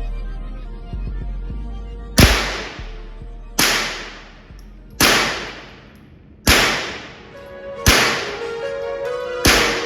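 Six shots from an AR-style rifle, fired one at a time about a second and a half apart. Each is a sharp crack with a ringing tail. Background music plays underneath.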